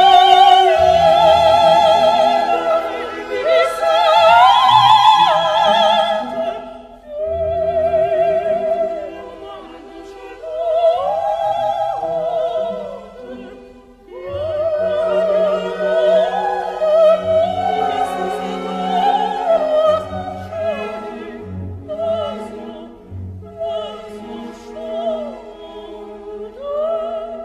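Operatic soprano singing long phrases with wide vibrato over orchestral accompaniment, with short breaths between phrases.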